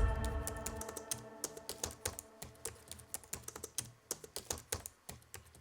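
Closing music dies away, followed by a run of quick, irregular sharp clicks like typing that stops abruptly.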